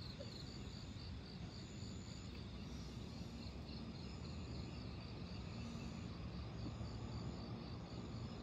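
Night insect chorus: a rapid, even high pulsing of about five chirps a second, with a higher drawn-out trill of about half a second repeating roughly every second, over a steady low background rumble.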